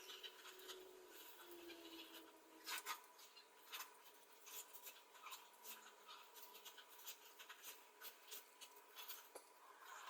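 Faint scraping and rubbing by hand, with scattered light clicks and taps.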